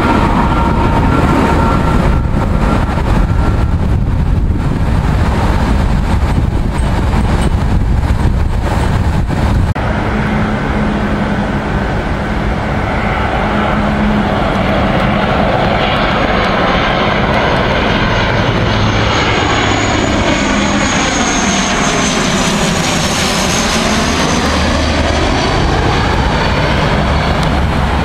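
Airbus A319 jet engines on landing approach running low overhead and trailing away. After a break, a De Havilland Canada Dash 8 Q400 turboprop comes in and passes overhead, its propeller drone and high whine sweeping in pitch as it goes over.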